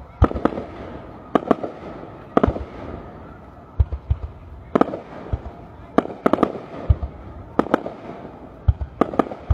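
Aerial firework shells bursting overhead: an irregular run of sharp bangs, often coming in close pairs, about two a second.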